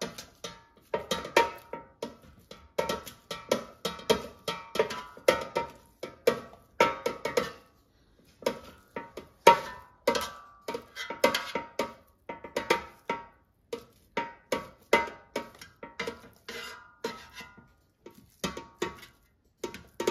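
Spatula chopping raw ground turkey against the metal air fryer basket: irregular knocks, two or three a second, each with a short ring, and a brief pause about halfway through.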